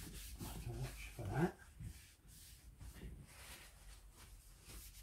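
Paper towel wiping over a slate clock case in repeated rubbing strokes, drying it after a rinse. About a second in, a short rising vocal whine stands out as the loudest sound.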